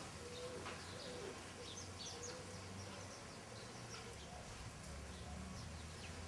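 Faint birdsong: scattered short, high chirps from small birds, with a dove cooing in low, level notes about half a second long.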